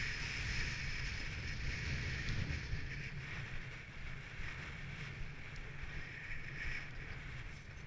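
Steady hiss of a ride-on snow sled gliding over groomed snow, with a low rumble of wind on the microphone.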